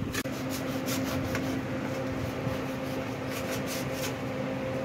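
Knife slicing through a watermelon's rind and flesh over a steel plate: a run of faint, short scraping cuts over a steady hum.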